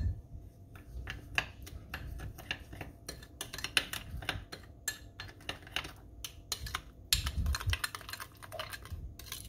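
Metal spoon stirring a thick sauce in a small glass bowl, clinking and scraping against the glass in quick, irregular ticks.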